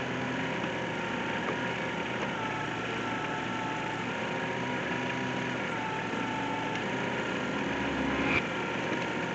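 Kubota compact tractor's diesel engine running steadily while its backhoe digs, with a faint wavering whine over it. Near the end the sound swells low as the bucket pulls a scoop of soil out, and ends in a short knock.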